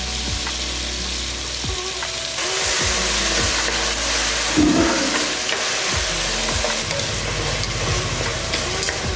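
Chopped small onions, garlic and tomatoes frying in sesame oil in a pan, sizzling steadily while a spoon stirs them. There are scattered light knocks of the spoon against the pan, and the sizzle grows a little stronger a couple of seconds in.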